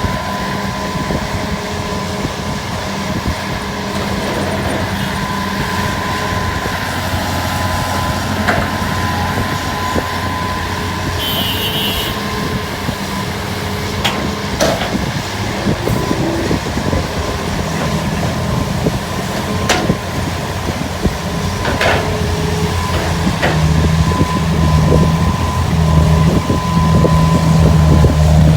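Diesel engine of a hydraulic excavator running steadily while it digs and loads soil, with a thin steady whine above the engine note. It works harder and gets louder in the last third. A few sharp knocks are scattered through, typical of the bucket striking soil or the truck bed.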